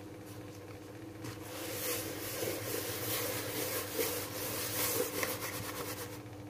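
Sesame seeds swishing and rattling against a plastic bowl as the bowl is swirled to coat onde-onde dough balls. The shaking starts about a second in.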